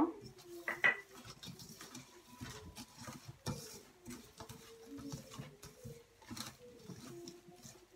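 Fingers working a wet spice paste around a stainless steel pan, making irregular squelching and scraping sounds against the metal. A faint, low, wavering tone runs underneath.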